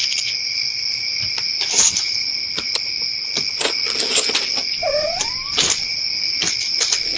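Steady high-pitched chorus of crickets, with scattered light clicks and one short swooping call about five seconds in.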